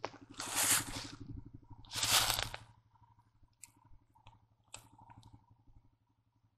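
Dry leaf litter rustling and crunching under a person crawling and reaching into a hollow at the base of a tree: two long rustles in the first couple of seconds, then a few faint cracks of twigs.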